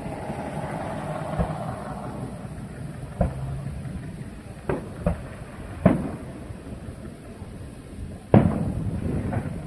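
Aerial fireworks going off: several sharp bangs spaced a second or more apart over a steady low rumble. The loudest bang comes about eight seconds in.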